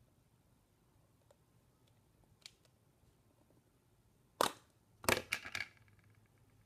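A sharp pop as the plastic lid comes off a Play-Doh tub, about four and a half seconds in, followed a moment later by a quick run of plastic clicks and clatters as the lid is set down on the table.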